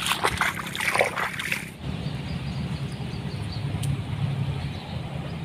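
Water splashing and sloshing in a flooded rice paddy for about the first two seconds, then cut off abruptly and replaced by a steady low rumble.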